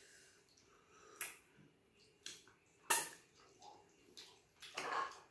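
Mouth noises of someone eating light soup with fish and starch: a handful of short, wet slurps and smacks, the loudest about three seconds in and a longer slurp near the end.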